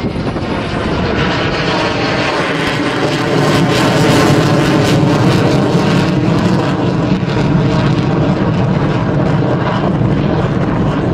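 F-16 Fighting Falcon's jet engine, loud and steady as the fighter climbs away overhead, swelling about three to four seconds in and then holding.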